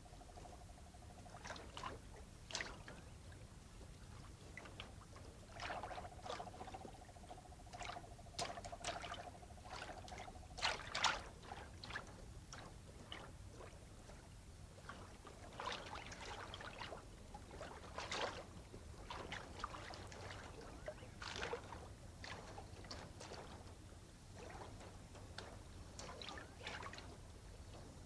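Raccoon splashing and dabbling with its paws in shallow water as it feels for fish, an irregular run of short splashes, the loudest about eleven seconds in.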